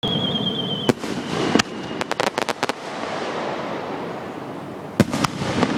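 Fireworks: a high whistle for about a second that ends in a sharp bang, a second bang, then a quick run of crackling pops around two seconds in, and another cluster of bangs near the end.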